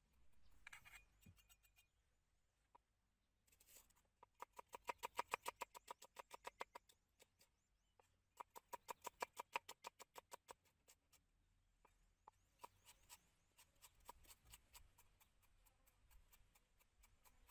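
Large kitchen knife chopping rapidly on a wooden chopping board: two fast runs of strikes at about seven a second, with slower, scattered chops before and after.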